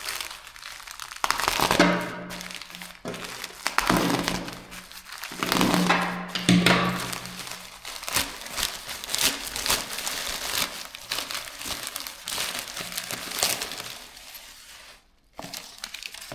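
Shipping packaging being opened by hand: continuous crinkling and rustling with scattered sharp snaps and thunks, dipping briefly near the end.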